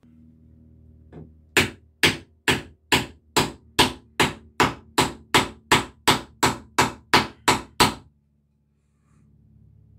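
Wooden mallet driving a carved wooden wedge into the top of an axe handle to spread it tight in the axe head's eye: about sixteen quick, even blows, roughly two and a half a second, after one light tap.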